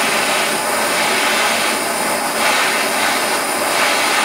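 Propane hand torch burning with a steady hiss as its flame heats a galvanized steel wire.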